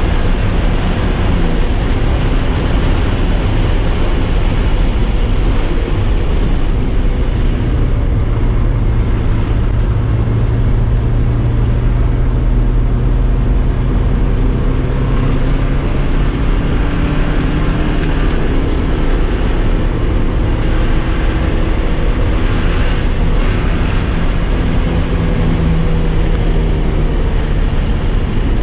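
Porsche 944's inline-four engine running hard on track, its note rising and falling with the throttle and gears, over loud wind and road noise.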